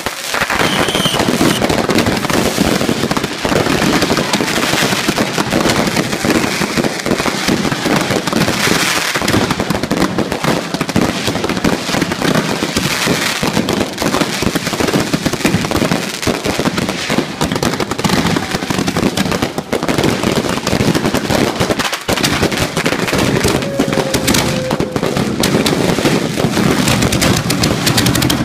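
Consumer ground fireworks, spark fountains and firecrackers, crackling and popping in a dense, unbroken stream of rapid sharp cracks.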